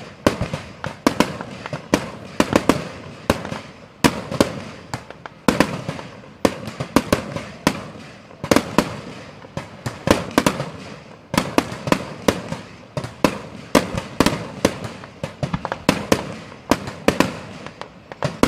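Fireworks display: a dense, uneven run of sharp bangs from aerial shells bursting overhead, several a second, with crackling between them.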